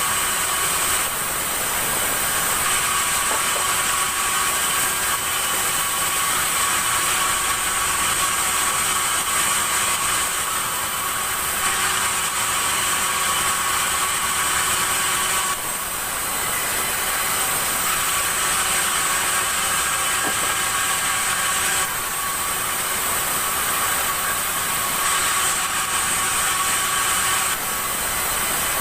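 Sawmill saw running continuously, with a steady high-pitched whine over a noisy mechanical drone, dipping briefly a few times.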